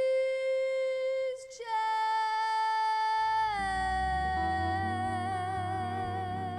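A woman singing long held notes on a song's final line. One note is held, breaks off about a second and a half in, then a higher note is held, steps down and takes on vibrato, while low band accompaniment comes in underneath about halfway through.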